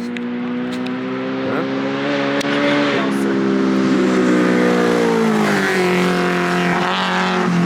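Off-road race car engine running hard as it approaches and passes by, its pitch dropping as it goes past.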